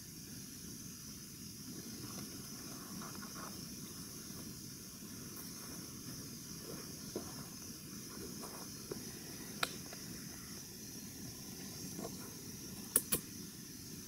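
Quiet woodland ambience: a steady high hiss with faint rustling in dry leaves. A few sharp clicks or snaps come through it, the loudest a pair in quick succession near the end.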